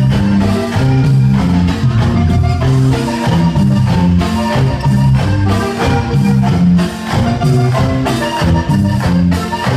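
Loud Latin dance music played over a sound system: an instrumental stretch with a steady beat and a stepping bass line, without singing.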